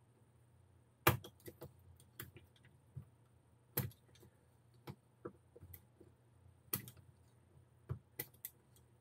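Scattered small metallic clicks and taps of pliers and metal parts as a wheel bearing is slowly pressed out of an RC car's rear hub. The sharpest clicks come about a second in, near four seconds, and again near seven and eight seconds.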